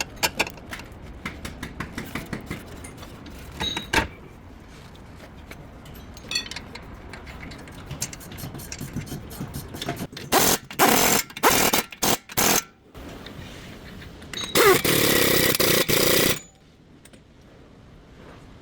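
Scattered light clicks and knocks of tool work on a car's front suspension. Then a power tool runs in a few short bursts, followed by one longer burst of about two seconds.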